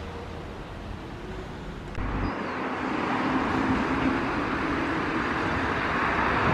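A low steady rumble, then, from about two seconds in, a passenger train running past on electrified track, its rolling noise swelling steadily louder.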